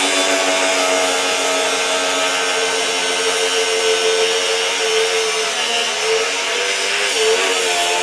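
Hercules HCB61P 20V brushless 4-1/2-inch angle grinder cutting through 1-inch rebar with a cut-off wheel: a steady motor whine over the hiss of the wheel grinding steel. The whine dips briefly in pitch about six seconds in.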